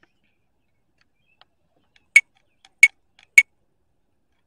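Three short, sharp clicks a little over half a second apart, with a few fainter ticks around them.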